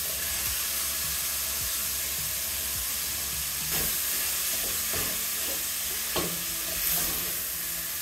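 Minced beef and sausage sizzling in a hammered copper saucepan, stirred with a wooden spoon, with a steady frying hiss. The spoon knocks lightly against the pan a few times in the second half.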